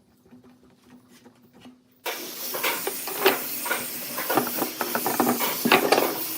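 A faint low hum with light ticks, then about two seconds in a tool starts cutting into wood: a loud hissing scrape with irregular sharp knocks, which cuts off suddenly near the end.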